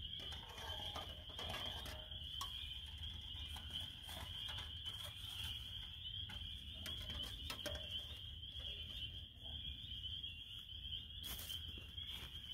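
Steady, high-pitched chorus of many small calling creatures blending into one continuous trill, with scattered light clicks and knocks.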